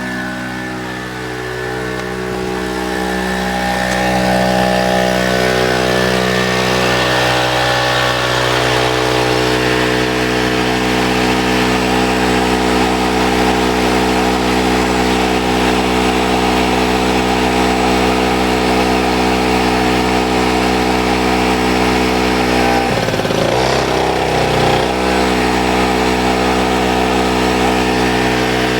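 Storm Cat 800-watt, 2 HP two-stroke portable generator engine running steadily. It grows louder over the first few seconds, and a few seconds before the end its pitch sags briefly and then recovers.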